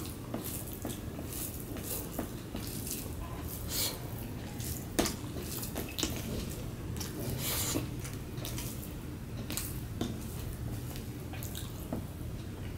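Fingers squishing and mixing rice with mashed potato-and-bitter-gourd bhorta on a metal plate: soft wet squelches and scattered small clicks, over a steady low hum.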